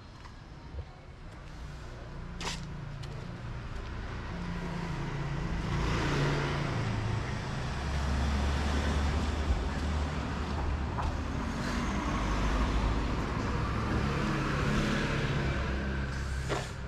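A motor vehicle's engine running close by, a low hum that builds over the first few seconds, stays loud, and falls away at the end, with road and tyre hiss above it. A sharp click comes near the start and another near the end.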